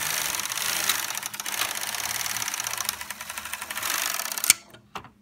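Singer/Silver Reed SK360 knitting machine carriage, joined by the connecting arm to the SR50 ribber carriage, pushed along the needle bed without yarn: a fast, continuous clatter of the carriage cams running over the needle butts. About four and a half seconds in it stops with a sharp clack, followed by a couple of lighter knocks. Oiling the rail has not cured the ribber carriage disconnecting.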